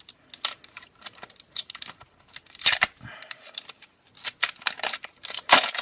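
Plastic packaging being torn and crinkled open by hand: irregular crackles and clicks, with louder rips about three seconds in and near the end.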